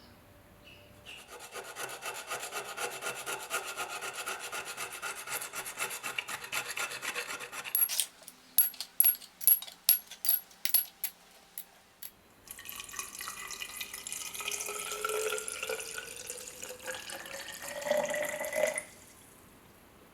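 Rapid hand rubbing or scraping strokes on the rusty folding knife's metal, as in rust removal. Midway the fast strokes give way to about eight slower, sharper single strokes, then fast rubbing resumes and stops suddenly near the end.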